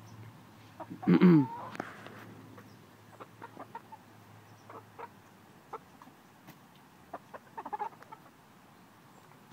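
Chickens clucking at close range. One loud squawk comes about a second in, then scattered light clicks and a short run of quick clucks near the end.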